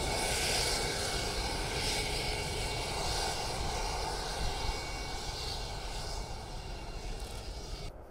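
Turbofan engines of two taxiing F-22 Raptors, a steady jet rush with high turbine whine tones, slowly fading, then dropping away suddenly near the end.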